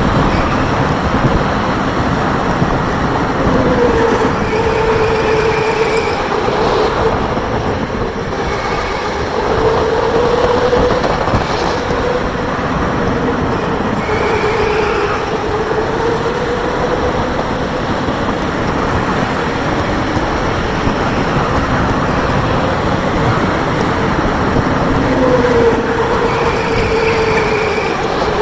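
Electric go-kart driven hard around a track: the motor's whine rises and falls with speed through the corners over a steady rush of tyre and rolling noise, with a few brief high squeals.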